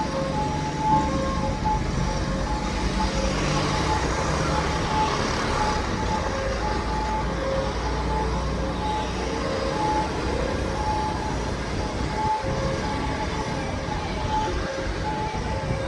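Road traffic going by, with a vehicle passing by about three to six seconds in. Over it, a two-tone siren sounds in short repeating beeps throughout.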